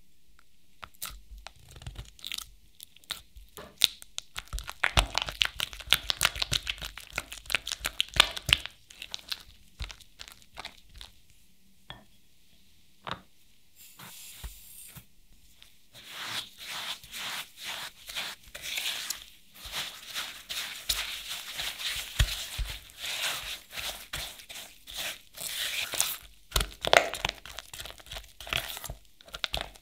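Silicone spatula working softened cream cheese in a glass bowl, with sticky clicking, smacking and scraping strokes. About 14 s in, brown sugar is poured in with a brief soft hiss, then the mixing strokes resume, denser and faster.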